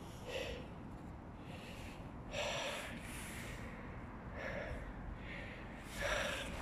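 Breaths close to the microphone: about five short breaths, unevenly spaced a second or two apart, the loudest near the end.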